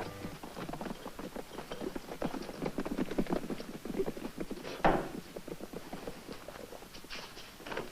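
Horses' hooves clip-clopping as riders move off, a rapid uneven patter of knocks with one louder knock about five seconds in.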